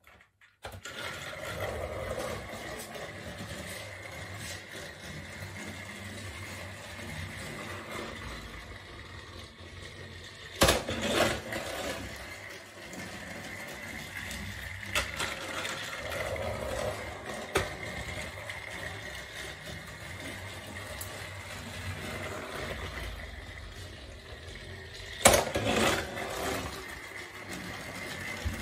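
A battery-powered Thomas TrackMaster toy engine switched on and running along plastic track, a steady small-motor whine with the rattle of wheels on the track. Two louder clattering knocks come about ten seconds in and near the end, about one lap apart.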